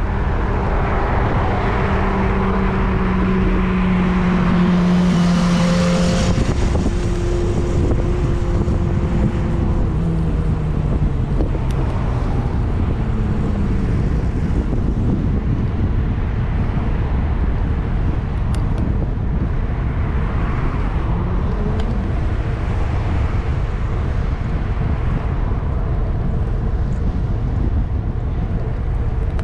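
Road traffic going by: cars pass one after another, the loudest about five or six seconds in, with engine tones dropping in pitch as vehicles go past around ten and twenty-one seconds in, over a steady low rumble.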